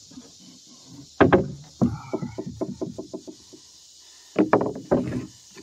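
Hammer blows on a wooden roof truss as a gusset is fastened: one heavy blow about a second in, a quick run of lighter taps that fade away, then another cluster of blows near the end.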